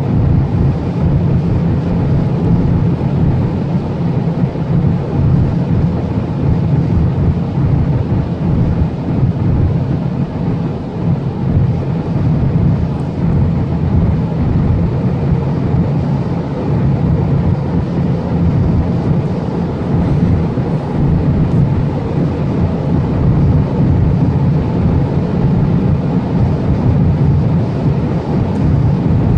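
Cabin noise of a Volkswagen Jetta 1.4 TSI (turbocharged four-cylinder) at about 200 km/h: a loud, steady low drone of engine, tyre and wind noise as the car pulls slowly faster in sixth gear near top speed.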